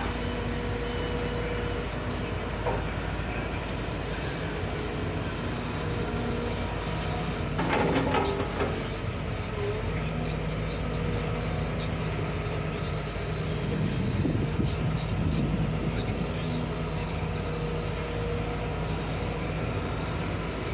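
Sumitomo hydraulic excavator's diesel engine running steadily under load as it digs into a pile of rock and soil, with a short clatter of rocks against the bucket about eight seconds in.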